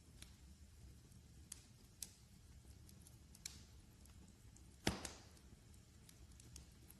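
Fireplace fire crackling faintly: scattered sharp snaps, with one louder pop a little before five seconds in.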